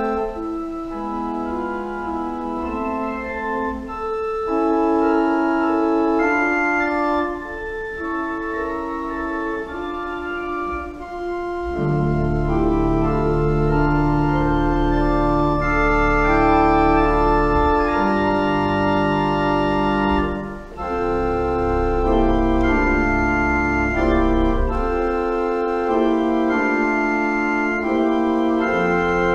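Church organ playing slow, sustained chords that change step by step; deep pedal bass notes come in about twelve seconds in.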